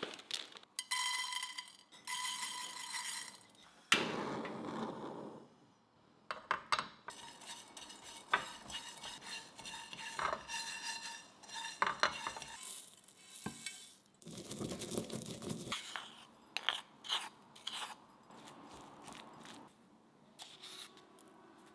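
Sichuan peppercorns and sesame seeds dry-toasting in a frying pan, stirred with a silicone spatula: scraping with many small ticks of seeds against the pan. A ringing tone sounds about a second in, and there are a few light clinks near the end.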